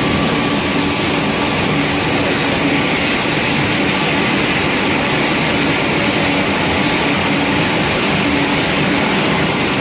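Steady, loud industrial machinery noise with a constant hum, from a wood pellet mill running in the factory.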